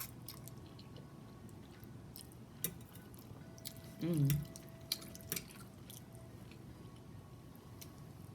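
A person chewing food close to the microphone: quiet wet mouth sounds with a few sharp smacks and clicks, and a short hummed "mm" about four seconds in.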